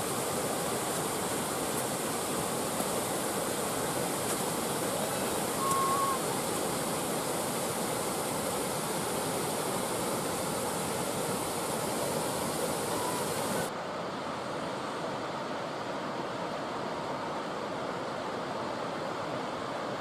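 Mountain waterfall rushing over rock: a steady roar of falling water, which loses its hiss and drops a little in level about two-thirds through. A short faint high note sounds about six seconds in.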